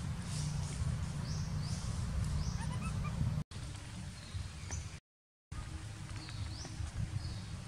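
Short high animal chirps every second or so over a steady low rumble. There is an edit cut about three and a half seconds in and a half-second dropout about five seconds in.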